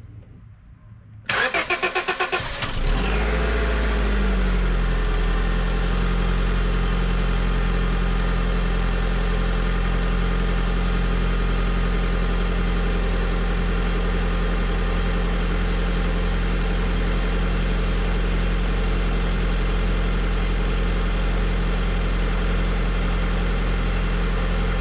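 2003 Honda Civic LX's 1.7-litre four-cylinder engine started on a freshly installed battery: the starter cranks it briefly and it catches at once. The revs rise and fall once, then it settles into a steady idle that sounds good.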